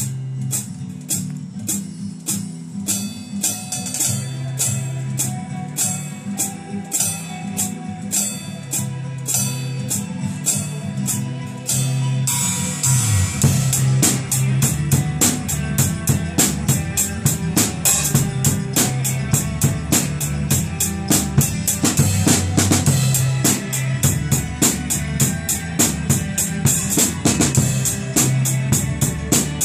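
Drum kit played along with a guitar song. For about the first twelve seconds the strokes are light and regular over the song's steady bass. Then the full kit comes in louder and busier, with bass drum, snare and Paiste cymbals.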